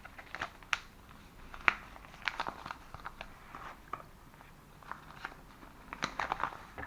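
Irregular crinkling and clicking of a small parcel's packaging being handled and opened, with sharp crackles scattered throughout.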